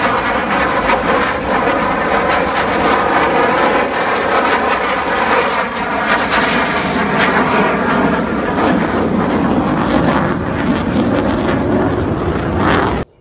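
F-16 fighter jet flying past overhead: loud, steady jet engine noise with a slowly sweeping, wavering tone, cut off suddenly near the end.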